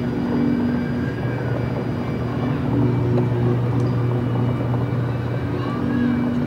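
Experimental ambient drone music: a steady low hum with held tones that fade in and out over a bed of noise, and faint gliding tones high above.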